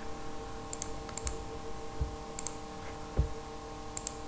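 Computer mouse clicking four times, each click a quick pair of sharp ticks from press and release, with a couple of soft low thumps, over a steady faint electrical hum.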